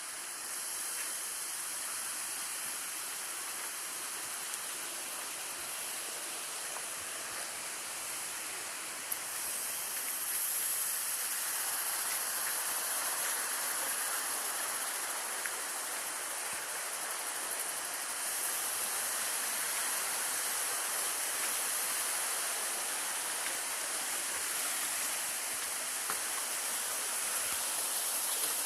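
Waterfall rushing: a steady hiss of falling water that grows louder and fuller about ten seconds in.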